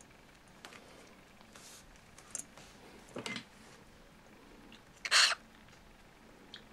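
Cockatiel eating, with a few faint, short smacking and crunching sounds and one louder noisy crunch about five seconds in.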